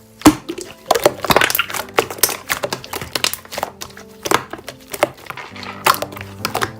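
Slime being pressed and worked by hand, giving a dense run of crackling clicks and pops that starts with a loud pop just after the start, over background music.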